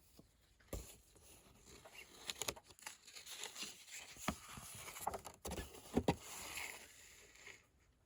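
Close handling noises: rustling and crinkling with a few sharp clicks and knocks at irregular intervals, settling down near the end.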